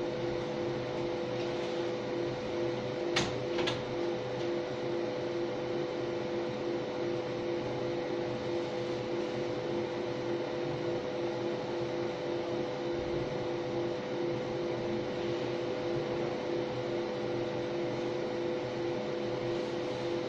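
MOPA fiber laser marking machine running while color-marking stainless steel: a steady mechanical hum with a buzzing tone that pulses a couple of times a second as the beam sweeps back and forth. Two sharp clicks about three seconds in.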